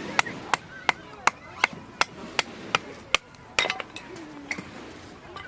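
Tent pegs being hammered into the ground: nine sharp, evenly spaced strikes at close to three a second. The strikes stop a little past halfway, followed by a louder knock and a couple of scattered taps.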